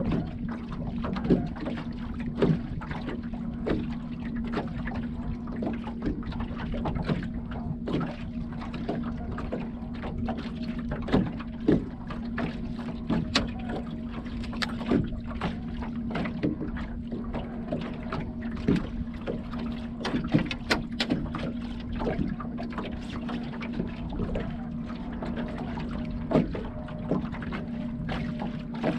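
Sounds aboard a small fishing boat: a steady low hum runs throughout, with irregular knocks and taps against the boat scattered across it.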